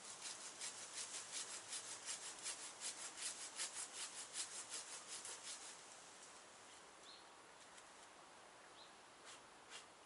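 Handsaw cutting through a tree branch in quick, even strokes, about four a second, which stop a little over halfway through.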